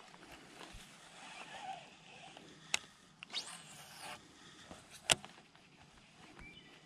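Handling of a baitcasting rod and reel: two sharp clicks, the second and louder one about five seconds in, with a quick rising swish between them.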